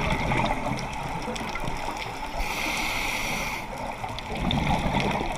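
Scuba diver breathing through a regulator underwater: a hissing inhale about halfway through, and bursts of bubbling exhale at the start and near the end.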